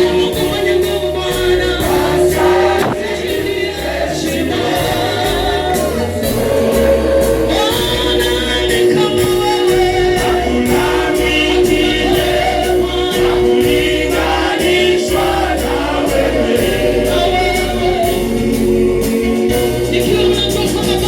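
Gospel choir singing with instrumental backing: several voices over a steady bass and a regular beat.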